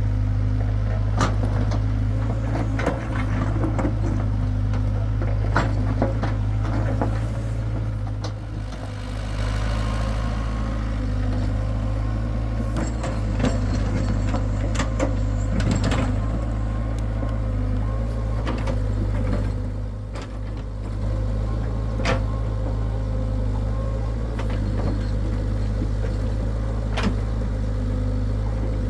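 Hitachi hydraulic excavator's diesel engine running steadily under load, with irregular metallic clanks and knocks throughout.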